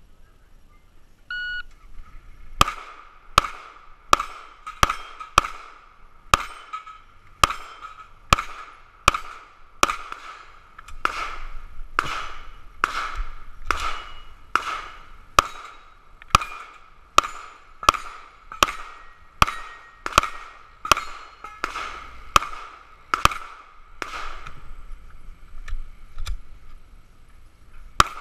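A shot-timer beep, then rapid pistol fire at steel targets: about thirty shots, one to two a second, each followed by the ring of the struck steel plate, with a pause of about two seconds near the end before the firing resumes.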